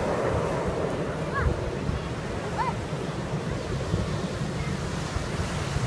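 Wind buffeting the microphone over a steady rush like surf on a beach, with a couple of faint brief chirps about one and a half and two and a half seconds in.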